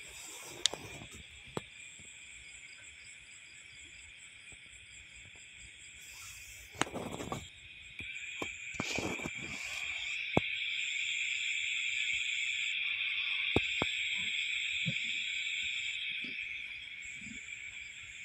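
A steady, high-pitched chorus of night insects, likely crickets, that swells louder for several seconds past the middle. A few sharp clicks and two short rustling bursts come near the middle.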